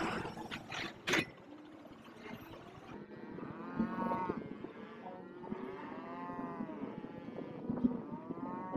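Cattle lowing: three long, drawn-out moos from the herd, each rising and falling in pitch. A sharp knock comes about a second in.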